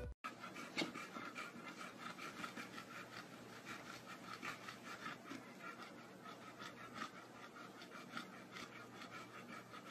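A dog panting faintly, quick even breaths at about three a second.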